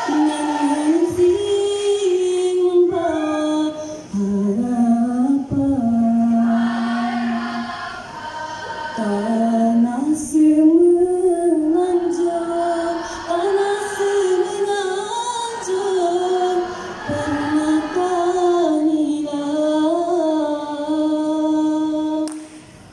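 Women's choir singing a patriotic song, the melody rising and falling in long held phrases; the singing stops near the end.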